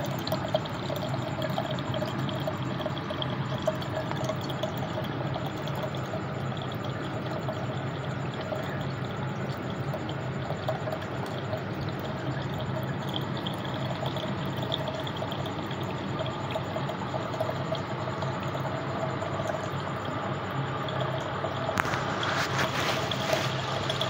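Small homemade cement tabletop fountain running: water pours steadily down its leaf-shaped channels and splashes into a clay pot, over the low steady hum of its mini pump motor. The splashing grows a little brighter near the end.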